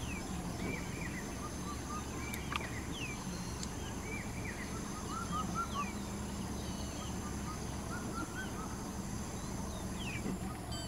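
Forest ambience: many birds calling in short, repeated chirps in small groups, over a steady high-pitched hum and a low steady rumble. A couple of brief clicks come about two and a half seconds in.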